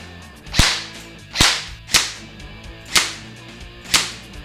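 Socom Gear Barrett REC7 airsoft electric rifle (AEG) firing single shots, five sharp cracks about a second apart, starting about half a second in.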